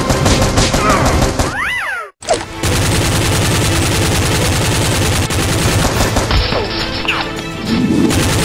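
Rapid automatic gunfire sound effects dubbed over toy foam blasters, a long stream of shots with a brief break about two seconds in.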